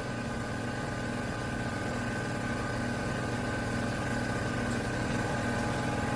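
A small motor running steadily, with a constant hum and a thin, even whine above it.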